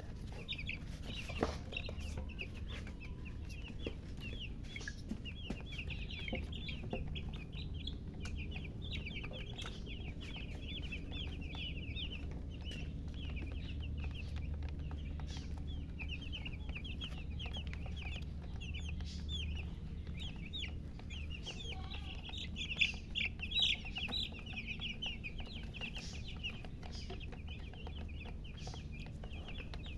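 Baby chicks peeping continuously: many short, high chirps overlapping throughout.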